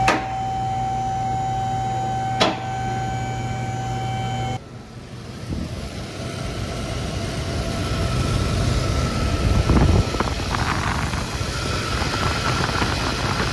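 Mercedes-Benz M120 V12 idling steadily while it warms up after a front crankshaft seal replacement, with a steady whine over the low hum. Two sharp knocks come near the start and about two and a half seconds in; after an abrupt change about four and a half seconds in, the idle is heard from underneath, close to the crank pulley.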